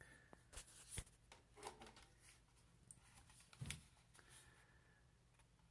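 Near silence with a few faint, scattered clicks and rustles of handling, the loudest about two-thirds of the way through.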